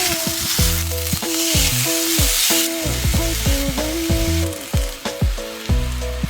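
Food sizzling and frying in a pan, the hiss swelling briefly about a second and a half in, under background music with a bass line.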